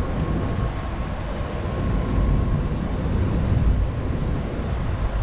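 Steady low rumble of water pouring through the dam, with a faint steady hum over it.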